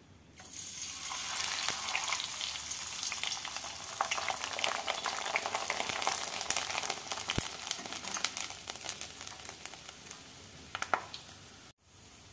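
Kurdai deep-frying in hot oil in a steel pot: a dense sizzle and crackle that starts as they go in and slowly dies down as they puff, with a few light knocks near the end.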